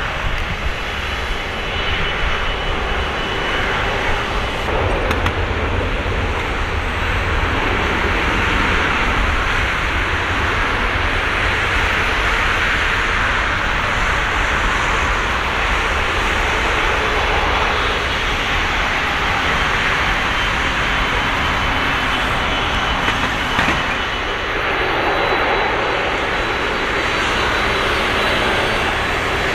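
Airbus A330-200's twin Rolls-Royce Trent 700 turbofans running at low taxi thrust as the airliner rolls onto the runway: a steady jet rumble and rush with a faint high whine.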